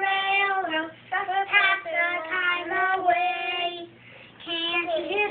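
A young child singing unaccompanied in long held notes, in phrases with short breaks about a second in and about four seconds in.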